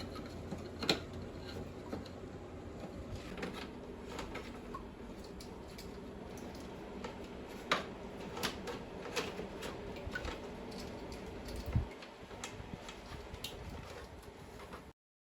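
Scattered light clicks and taps over a faint low hum, with a dull thump about twelve seconds in; the sound cuts off abruptly near the end.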